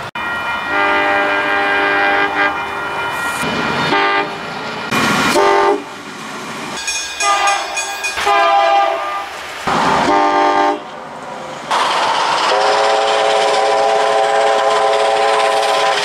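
Locomotive horns from several different trains, cut one after another. Multi-note chord horns give short and long blasts, ending with one long held blast.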